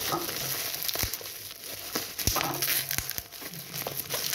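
Black plastic parcel wrapping crinkling and crackling as it is pulled and picked open by hand, with a few sharp clicks along the way.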